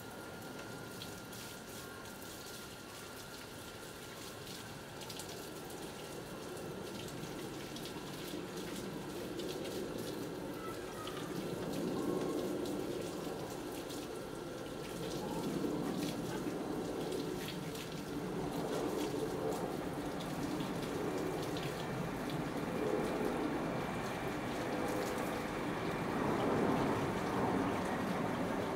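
Rain falling and getting steadily heavier, with scattered drops ticking close by.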